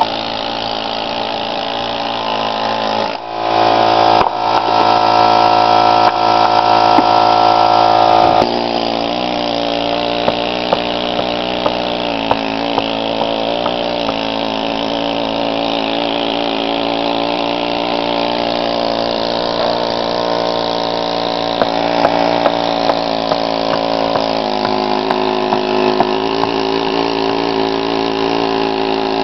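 Pneumatic air hammer with a chisel bit working the mortar of a brick chimney: a steady, rapid machine buzz that runs louder and higher for about five seconds a few seconds in. Scattered sharp clicks follow as bits of brick and mortar break away.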